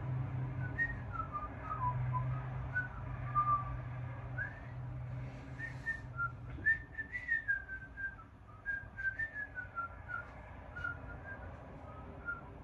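A person whistling idly, one meandering tune that glides up and down in short phrases. A low steady hum sits under it and fades out about six and a half seconds in, and a few light clicks follow in the second half.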